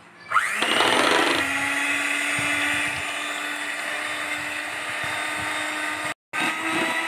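Electric hand mixer switched on, spinning up with a quick rising whine, then running steadily at high speed as its beaters whisk a thin milk mixture. The sound cuts out for a split second about six seconds in and resumes.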